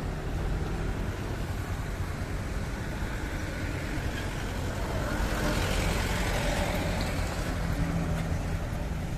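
Road traffic: a steady low rumble of vehicle engines and tyres, growing louder for a few seconds as a vehicle passes close by.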